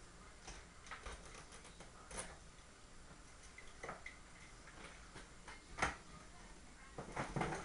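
Scattered light clicks and taps at uneven intervals, one sharper click at about six seconds in, and a denser cluster near the end: handling noise.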